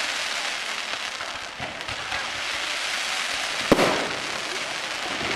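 Fireworks going off: a steady wash of crackling with scattered pops, and one sharp, loud bang about two-thirds of the way through.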